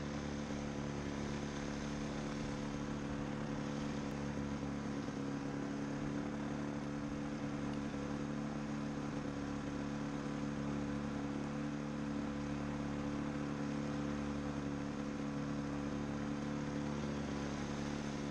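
Pterodactyl Ascender II ultralight's two-stroke engine running steadily at a constant speed, with a dull hiss over its hum.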